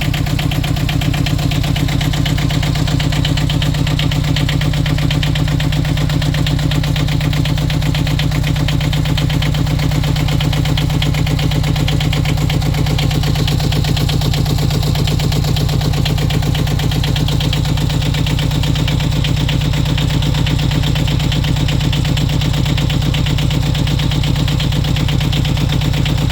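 The yacht's newly fitted inboard diesel engine idling steadily after a cold start, an even, fast pulsing run with no change in revs.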